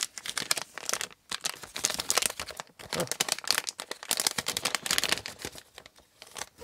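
Crinkling of a plastic anti-static bag being handled as a circuit board is slid out of it: a run of irregular crackles that thins out near the end.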